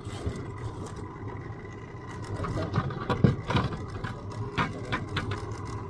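A boat engine idling steadily, with a few sharp clicks and knocks in the second half.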